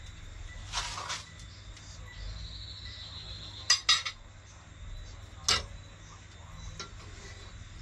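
Cutlery against dishes: a short scrape about a second in, then a quick double clink, and a single clink a moment later.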